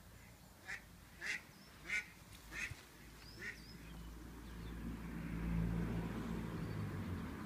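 A bird, most like a duck, calls five times in quick succession, about two-thirds of a second apart. Then a low rumble swells from about halfway through and holds to the end.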